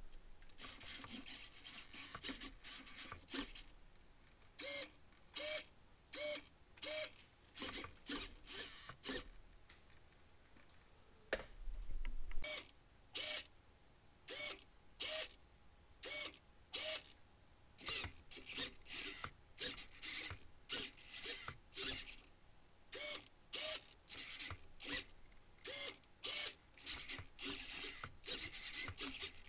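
Small hobby servos whirring in short bursts, one after another, as they turn an action figure's head and arms. Each burst is a brief whine, about one to two a second, with a few short pauses.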